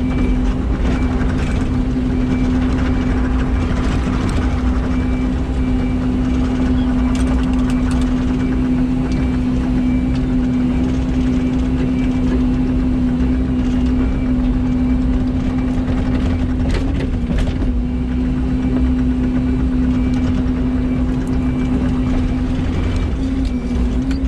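Excavator's diesel engine running steadily with a constant hum, with a few light knocks and clanks from the machine working.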